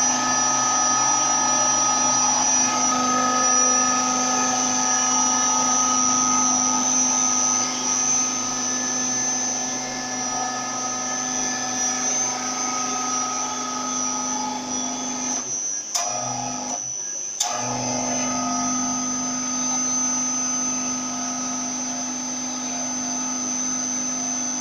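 A small electric motor running with a steady whine. It cuts out twice briefly about two-thirds of the way through, with a click each time it comes back.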